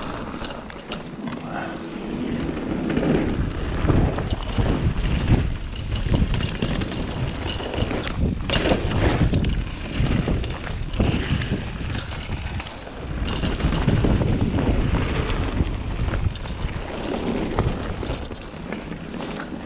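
Wind buffeting the microphone: a loud rushing rumble that swells and eases in gusts.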